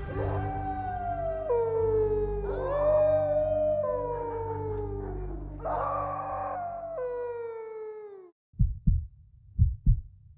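A dog howling, a series of long calls that slide down in pitch, over a low steady drone. The howls and drone stop about 8 seconds in, followed by a few short low thumps.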